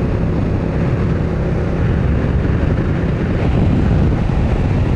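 Steady wind rushing over the microphone of a motorcycle at highway speed, over a heavy low rumble of engine and tyres as it rides alongside a road train.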